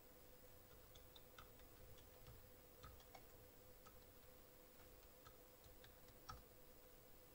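Faint keyboard typing: a dozen or so soft, irregular key clicks over several seconds, with a faint steady hum underneath; otherwise near silence.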